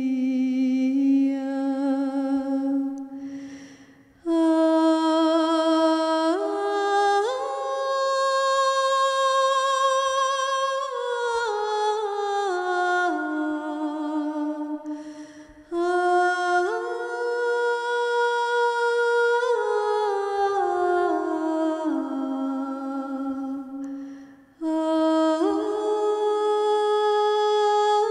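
A woman's solo voice singing a slow hymn to Mary unaccompanied, with long held notes that glide up and down. The phrases break off briefly about 4, 16 and 24 seconds in.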